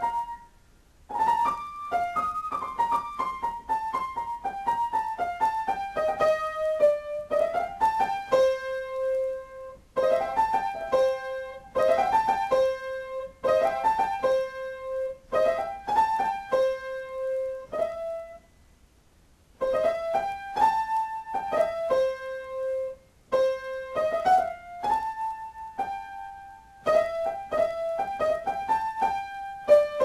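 Solo piano improvising a melody of quick single notes, with one note repeated over and over through the middle stretch. The playing breaks off in short pauses, the longest lasting about a second around two-thirds of the way through.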